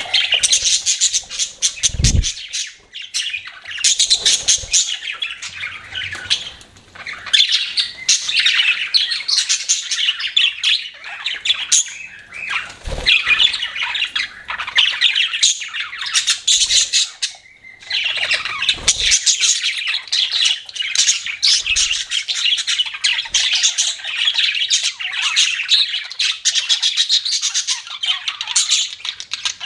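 A group of budgerigars chattering: rapid, busy chirps, warbles and squawks with only brief lulls. A few dull low thumps come in between.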